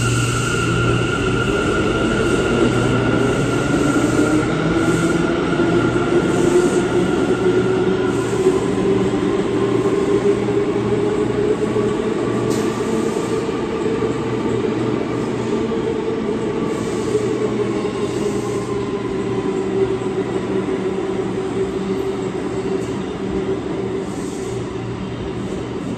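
A New York City Subway C local train pulling out on the far track: a steady rumble of wheels and running gear, with a motor whine that rises in pitch over the first dozen seconds as the train gathers speed, then holds. The sound eases slightly near the end as the last car passes.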